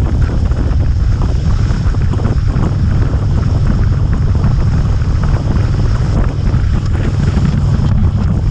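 Steady wind rush over the microphone of a motorcycle riding at road speed, heavy in the low end.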